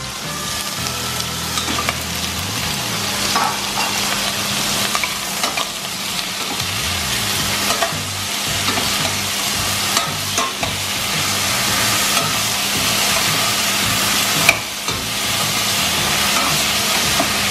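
Green papaya and mushrooms sizzling in hot oil in a stainless steel pot while a spatula stirs them, with many small scrapes and clacks against the pot and one sharper clack near the end.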